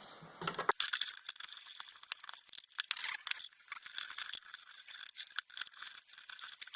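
Small metal parts and tools clicking and rattling as they are handled, in a quick, irregular run of sharp clicks.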